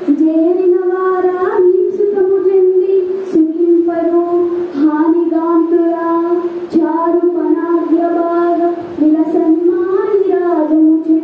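A single high voice singing a Telugu padyam verse in long, drawn-out held notes that stay near one pitch, with short rising and falling turns between phrases.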